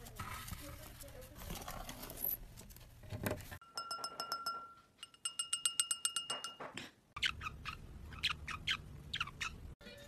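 A green-cheeked conure pecks its beak against a hand-held wine glass, which rings with a clear tone at each tap: a few separate taps, then a quick run of them. Before it there is soft scuffling. After it comes a string of short, sharp parrot chirps, which the picture ties to a sun conure.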